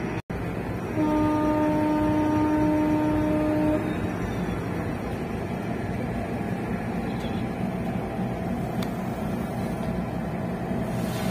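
A ship's horn sounds one steady blast of about three seconds, starting about a second in, over the continuous low drone of the ferry's engines.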